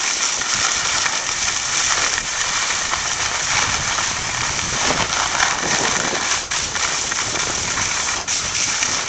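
Steady rushing noise of wind over the microphone and skis on snow during a fast downhill ski run, dipping briefly twice near the end.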